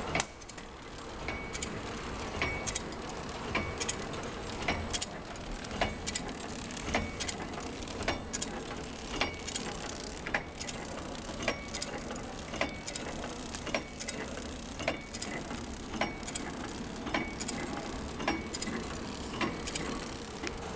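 Ice lolly flow-wrap packing machine running, with a sharp click repeating evenly a little under once a second over a steady mechanical hum.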